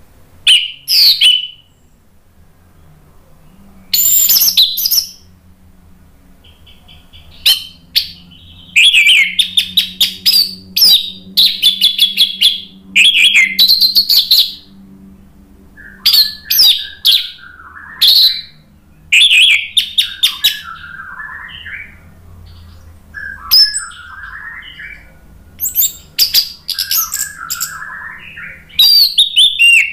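Orange-headed thrush (anis merah) singing loud, ringing whistled phrases of a second or two each, with short pauses between them. In the second half, softer and lower warbling fills the gaps between the loud phrases.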